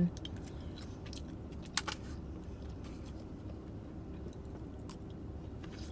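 A person chewing and biting food, with a few small crunchy clicks, the clearest about two seconds in, over a low steady rumble.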